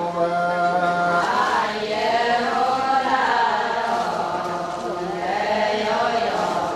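A chorus of Adi women chanting a Ponung song together, with many voices held on long, drawn-out notes.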